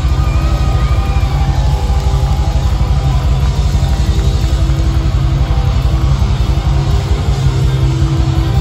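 Loud live hard-rock music from a band on stage, with heavy bass and drums driving a steady beat.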